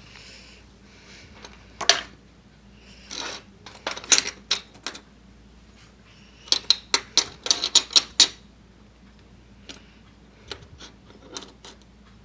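Sharp clicks and clinks of small hard objects being handled, with a quick run of about ten clicks midway.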